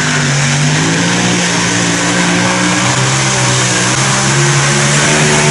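Supercharged engines of a multi-engine modified pulling tractor, running flat out at steady high revs during a pull: a loud, continuous drone that barely changes in pitch.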